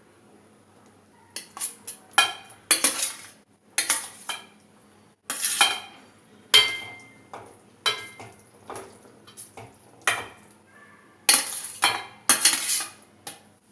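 A spoon knocking and scraping against a pan in quick, irregular strokes as pasta is stirred into white sauce, a few strokes ringing briefly.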